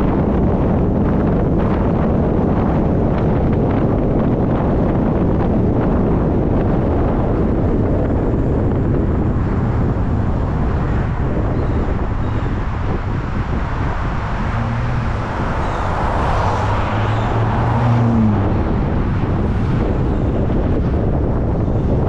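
Wind buffeting the microphone of a camera on a moving car, over a steady rumble of tyres on the road. About two thirds of the way through a low hum comes up for a few seconds and rises in pitch as it ends.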